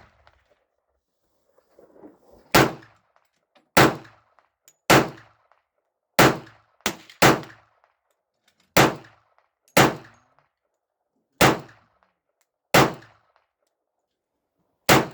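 Glock 41 .45 ACP pistol fired eleven times at a slow, deliberate pace, about one shot a second, with a few quicker shots near the middle. Each shot has a short echo tail.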